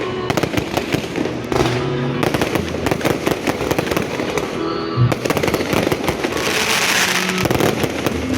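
Fireworks going off in a dense, rapid run of cracks and pops, with a louder hissing spray for a second or two about six and a half seconds in.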